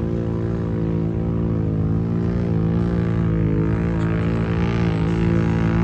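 ATV engine running at steady revs, a droning note whose pitch wavers slightly and grows a little louder.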